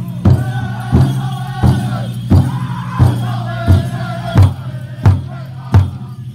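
Powwow drum group: a big drum struck in a steady beat about one and a half times a second, with singers' high wavering song over it, strongest in the first few seconds.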